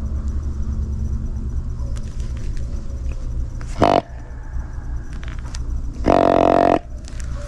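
Whitetail buck grunting: a short grunt about four seconds in, then a longer, louder grunt lasting most of a second near the end, over a steady low rumble.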